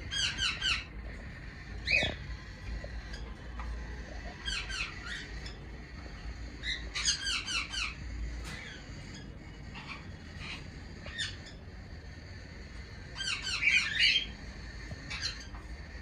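Caged cockatiels calling: four bursts of quick repeated chirps, about five notes each, the last and loudest near the end, with single short calls in between.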